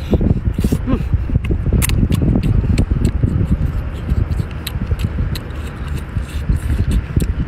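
Shellfish being eaten: scattered sharp clicks and cracks of shells, over a steady low rumble.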